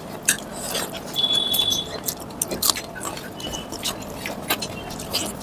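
Close-up eating sounds of a meal of rice and chicken curry eaten by hand: fingers mixing rice on the plate, tearing chicken and chewing, heard as a string of short sharp clicks and smacks.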